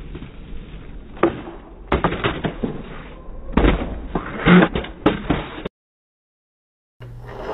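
Skateboard on concrete: wheels rolling, then a string of sharp clacks and knocks as the board pops and its trucks hit and slide along a concrete ledge, the loudest about four and a half seconds in. The sound cuts out suddenly for about a second near the end.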